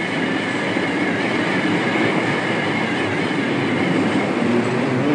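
Open-hearth furnace charging machine running on its rails along the furnace line: a steady, loud, rumbling clatter of heavy machinery on rails.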